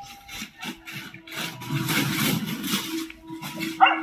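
Dry leaf litter rustling and scraping as a dog chases a monkey, which scrambles up a tree trunk; the rustling is loudest in the middle. Near the end, one short, sharp animal cry.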